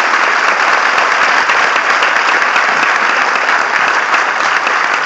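Auditorium audience applauding steadily, a dense sustained clapping for an award recipient as her name is announced.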